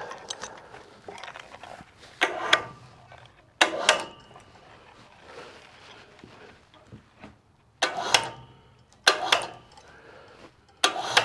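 Winch-driven log roller turning a log on a sawmill: a series of sharp metallic clanks and bangs, about five loud ones spaced a second or more apart, some with a low hum under them.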